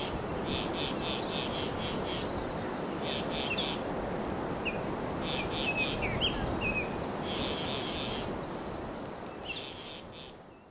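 Insects chirping in short pulsed trills that repeat every second or two, with a few short bird chirps, over a steady noisy hiss; it all fades out near the end.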